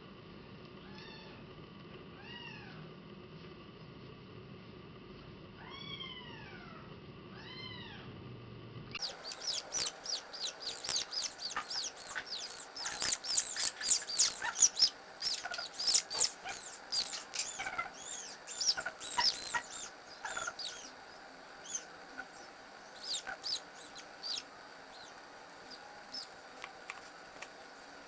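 Very young kitten meowing while being wiped with a damp cloth. A few faint, falling meows come first, then from about nine seconds in a rapid string of loud, high-pitched cries that thins out near the end.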